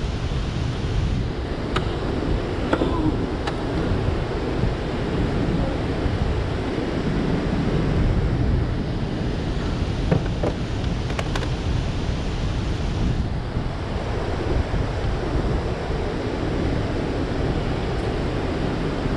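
Steady rush of turbulent water churning below a dam's open floodgates, mixed with wind noise on the microphone. A few light knocks and clicks stand out, mostly in the first few seconds and again about ten seconds in.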